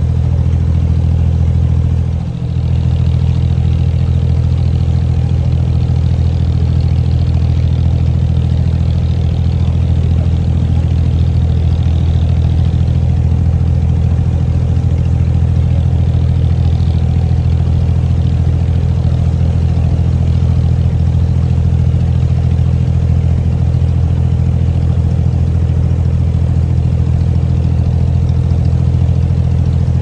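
Abra water taxi's inboard diesel engine running steadily underway, a loud low drone that dips briefly about two seconds in.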